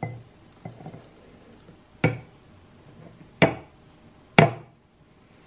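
A metal-rimmed milk frother jug knocks three times, sharply, against a glass mug while frothed oat milk is poured from it, with a couple of fainter knocks before.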